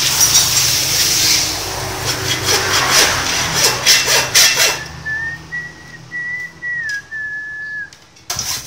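Hacksaw strokes rasping through the casing of a Honda GX160 engine's failed ignition coil, cutting it open to get at the winding. After about five seconds the sawing stops and a high whistling tone is held for about three seconds, stepping slightly up and down in pitch.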